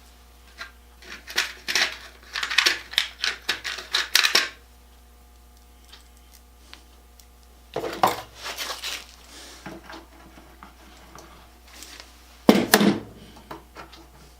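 Small metal hardware clinking and clattering as it is handled. The sound comes in three bursts of quick rattling clicks: a long one at the start, a shorter one about halfway through, and a brief one near the end.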